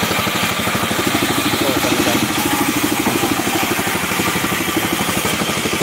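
Small stationary engine on a wheeled machine running steadily at a fast, even pulse.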